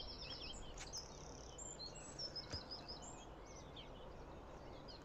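Small songbirds chirping and singing in the dawn chorus: quick repeated high notes and short trills, over a faint steady outdoor hiss, with a couple of soft clicks.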